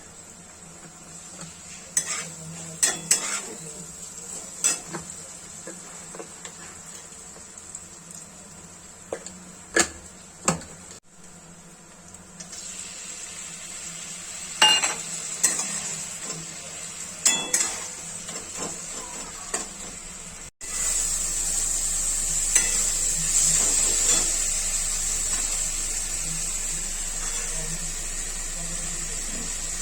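Food frying in a pan for mushroom masala: a utensil clinks and scrapes against the pan in scattered knocks as it is stirred, over a low sizzle. About two-thirds of the way through it cuts to a louder, steady sizzle.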